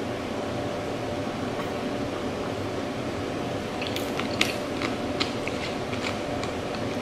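Cap being screwed onto a plastic drink bottle: a quick run of sharp plastic clicks and crackles for about two and a half seconds, starting about four seconds in, over a steady background hum.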